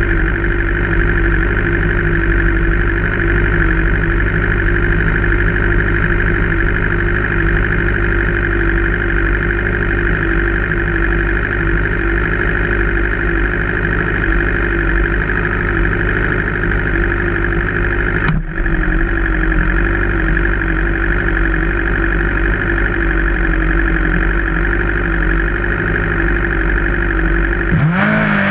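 Drag-racing engine idling steadily and loudly close by at the start line, the sound cutting out for a split second about two-thirds of the way through. Near the end its pitch starts to rise and waver as it is revved up.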